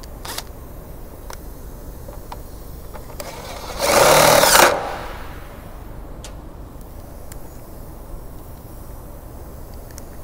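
A power drill drives a screw into the plastic air filter box to fasten the wire-mesh screen, in one short run of a bit under a second about four seconds in. A few light handling clicks come before and after it.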